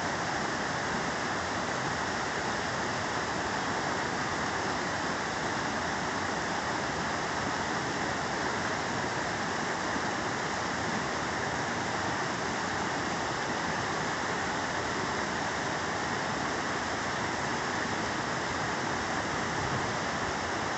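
Fast mountain stream rushing over rocks in whitewater: a steady, unbroken rush of water.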